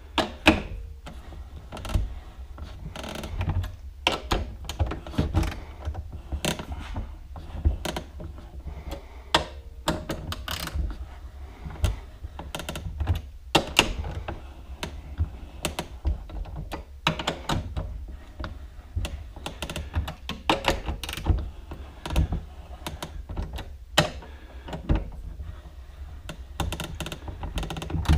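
Shock spring compressors being slowly backed off a coil-over shock spring: scattered metal clicks and knocks at uneven intervals, over a steady low hum.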